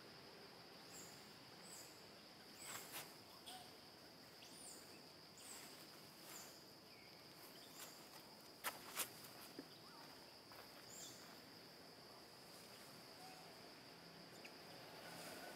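Faint natural ambience: a steady high insect drone, with short high chirps now and then and a few sharp clicks, the loudest a pair about nine seconds in.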